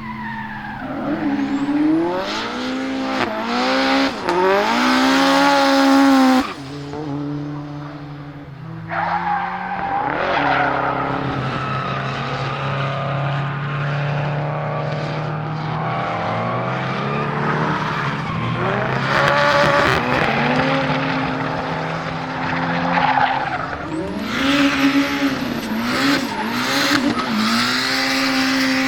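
Turbocharged 4G63 four-cylinder of a rear-wheel-drive Mitsubishi Lancer Evo X drift car, revving up and down repeatedly with tyres squealing as it drifts. The engine has a misfire. The sound drops off sharply about six seconds in, holds steadier through the middle, and rises and falls again near the end.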